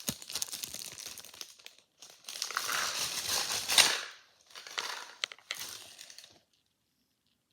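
Plastic candy packaging crinkling as it is handled, in several spells, loudest around three to four seconds in, then going quiet near the end.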